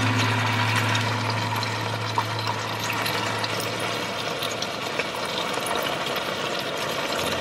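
Oysters, tomato and lettuce frying in a pan on a camp stove: a steady sizzling hiss with small scattered pops.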